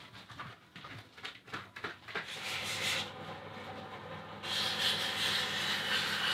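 Abrasive paper sanding a brass handle as it spins in a metal lathe: a steady hiss that gets louder about four and a half seconds in, after a couple of seconds of scattered clicks and knocks.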